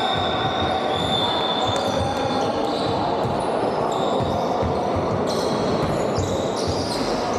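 Live basketball play on a hardwood court: the ball bouncing as it is dribbled, and sneakers squeaking on the floor in short high chirps. Indistinct voices of players and spectators echo in the background.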